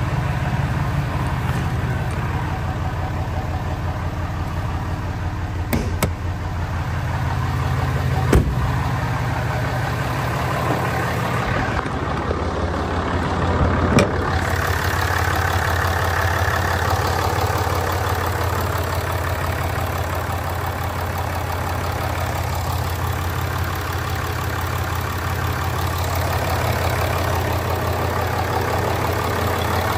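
6.7-litre Cummins inline-six turbo diesel of a 2016 Ram 2500 idling steadily, with a few sharp clicks in the first half.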